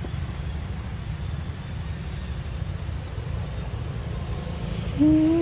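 A steady low rumble with no distinct events, and a short voiced call with a slight rise in pitch starting near the end.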